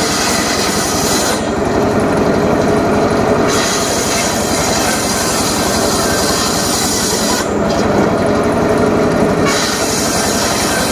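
Homemade engine-driven circular saw running loudly and steadily while cutting wood, its drive making an even rapid pulsing. Twice, for about two seconds each, the high hiss drops away and the sound turns duller.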